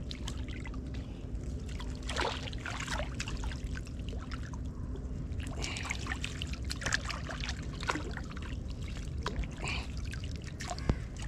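Water trickling and splashing in irregular small spurts, over a steady low hum.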